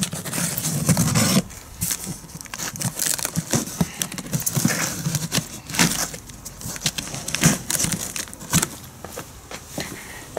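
Packing tape on a large cardboard box being slit and torn open, then the cardboard flaps pulled apart: rustling, tearing and scraping of tape and cardboard with many short crackles and clicks.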